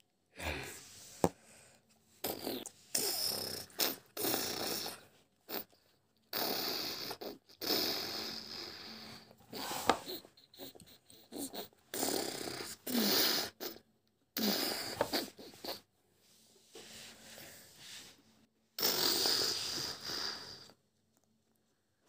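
A guinea pig sniffing and snuffling close to the microphone: a long run of short, breathy puffs broken by brief pauses, with a couple of sharp clicks.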